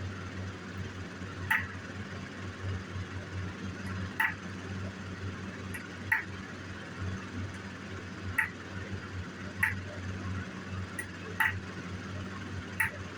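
Hammer striking a metal stamping punch against a metal buckle, about seven sharp ringing taps a second or two apart, as a feather pattern is stamped in. A steady low hum runs underneath.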